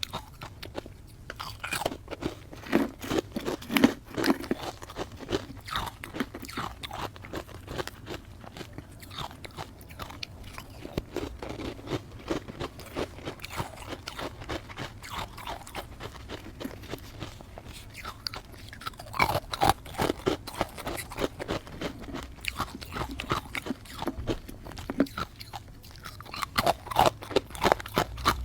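Close-miked biting and chewing of powdery matcha-dusted ice, a dense run of small crunches with louder bursts of bites now and then.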